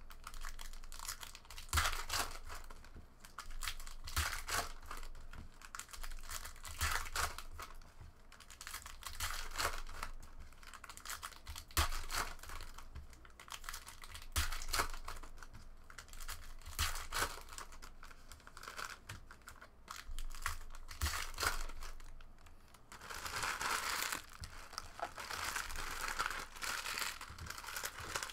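Panini Prizm basketball trading cards being handled: cards sliding, flipped and tapped onto stacks on a table in irregular clicks and rustles, with crinkling of foil pack wrappers. A longer stretch of rustling comes near the end.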